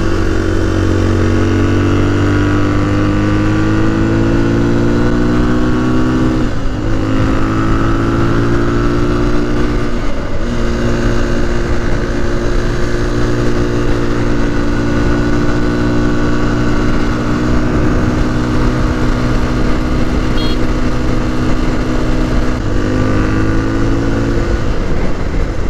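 Yamaha TT-R250's single-cylinder four-stroke engine running steadily at road cruising speed, heard from the rider's position with wind noise on the microphone. The engine note dips briefly and picks up again twice, about six and ten seconds in, and rises a little near the end.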